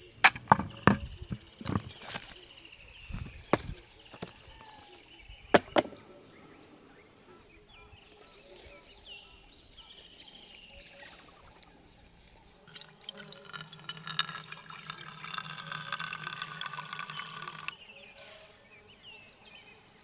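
A few sharp knocks and clatters, then water pouring steadily for about five seconds past the middle before it stops.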